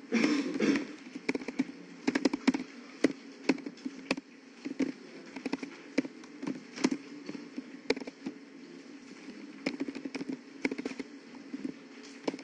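Typing on a computer keyboard: irregular runs of keystroke clicks with short pauses between them, some keys struck harder than others. A brief louder rustling burst comes right at the start.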